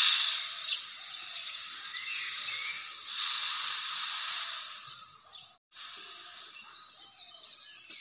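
Outdoor ambience: a steady hiss-like background with a few faint bird chirps scattered through it. The sound cuts out for a moment just past halfway.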